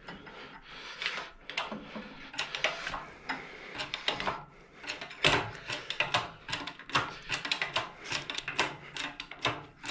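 Irregular metallic clicks and clanks of an engine hoist and its lifting chains at work as a Honda K24 engine is raised out of the engine bay.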